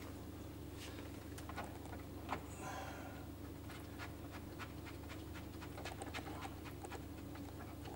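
Faint small clicks and rustling as a threaded hose fitting is screwed by hand onto the TECO TK2000 chiller's water port, the clicks coming thickest in the second half. A steady low hum of running equipment sits underneath.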